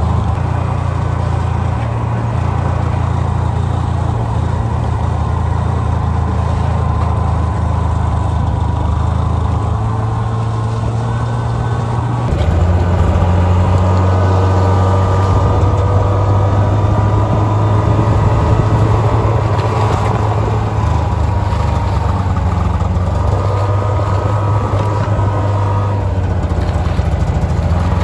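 Snowmobile engine running steadily under way, its low drone stepping up louder with a change of note about twelve seconds in.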